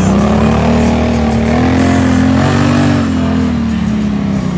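Snorkeled ATV engine running hard as the quad drives through deep water. The pitch climbs slowly for the first couple of seconds, then eases off in the second half.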